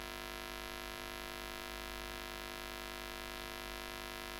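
Steady electrical hum with many overtones over a low hiss, unchanging throughout: background noise of the recording chain between spoken sentences.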